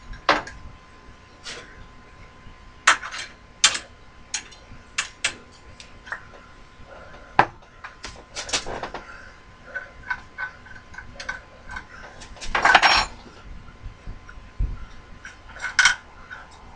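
Small metal parts and tools clinking and knocking as they are picked up and set down, in scattered single taps, with one longer, louder rattling scrape about three-quarters of the way through.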